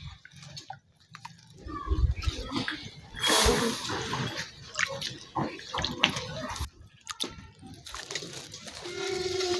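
Water splashing and sloshing as a polythene bag of young catfish is emptied and hands work in the shallow pond water, with the loudest splash about three seconds in.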